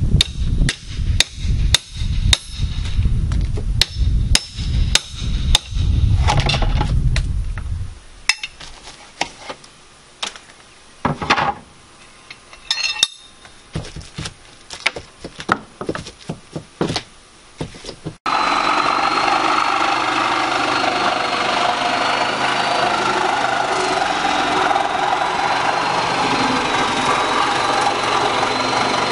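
Hammer blows knocking out part of an exterior house wall, about two heavy strikes a second for the first eight seconds, then lighter, scattered knocks and taps. About two-thirds of the way through, a handheld power tool starts and runs steadily with a faint whine.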